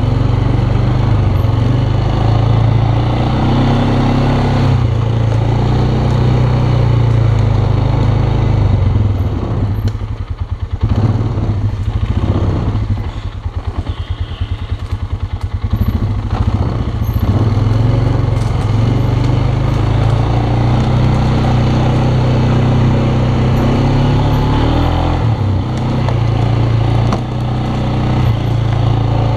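Polaris Sportsman ATV engine running steadily under throttle. It drops to a lower note for a few seconds in the middle, with the separate firing pulses audible, then picks up again.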